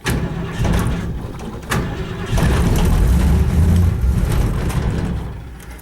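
Panel truck engine cranking and sputtering as it tries to catch on a choked cold start after sitting for weeks. It runs unevenly, picks up in the middle, then dies away near the end without settling into an idle.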